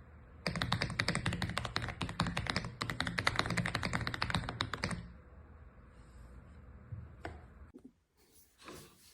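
Fast typing on an AULA F75 mechanical keyboard with pre-lubed Reaper switches: a dense run of key clacks that stops about five seconds in, followed by a single key press a couple of seconds later.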